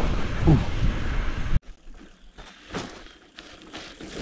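Mountain bike riding fast on a dirt road: wind rush and tyre rumble on a handlebar-mounted camera, cutting off suddenly about a second and a half in. What follows is much quieter, with scattered small clicks and crunches of a loaded bike's tyres rolling over dirt and rock.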